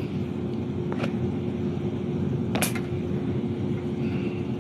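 Steady low rumbling background noise with a constant hum, and two short clicks, about a second in and again a second and a half later.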